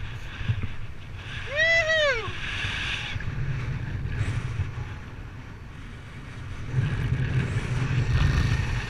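Wind buffeting the microphone in flight, a steady low rumble that grows stronger after about six and a half seconds. About a second and a half in, a short pitched cry rises and falls once.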